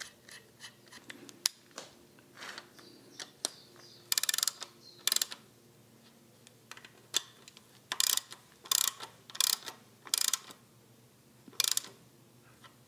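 Ratchet wrench clicking in a series of short bursts as a socket runs down the bearing-cap nuts on the crankshaft of a Citroën U23 engine, with faint small metal clicks before the first stroke.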